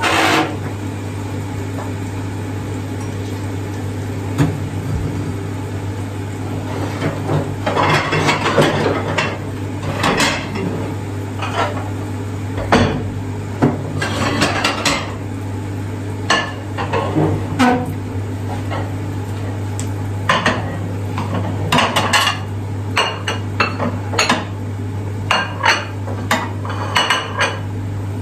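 Household clatter: irregular clinks and knocks of hard objects being handled, in clusters, over a steady low hum.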